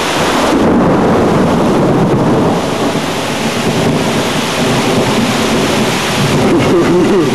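Thunder rumbling over steady heavy rain. A long roll swells at the start, eases, and swells again near the end.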